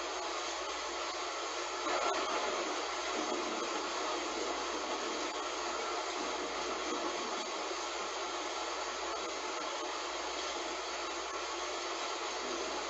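Heavy rain falling in a steady hiss, briefly swelling louder about two seconds in.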